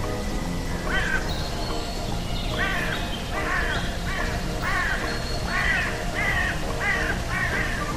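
Background music: sustained low tones under a string of short notes that rise and fall, about one or two a second.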